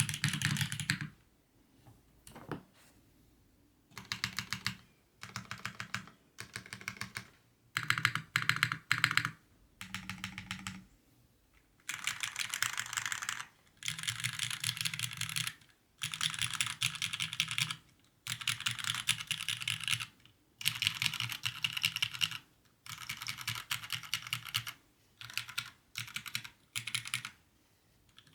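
Typing on a mechanical keyboard with lubed Cherry MX Black linear switches, an aluminium plate and GMK keycaps. Fast keystrokes come in bursts of a second or two, separated by short pauses, with a longer lull about a second in.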